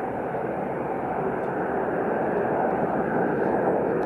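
Airliner engine noise, a steady rushing sound that grows a little louder toward the end.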